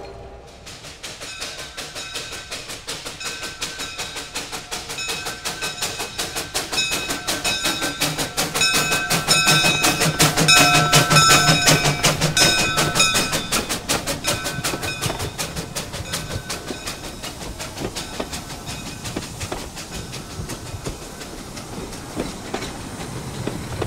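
Sandy River & Rangeley Lakes No. 6, a 2-foot gauge steam locomotive, passing close with its train: a fast, even clicking of wheels and running gear that builds to its loudest about ten to twelve seconds in, with high ringing tones over it, then fades.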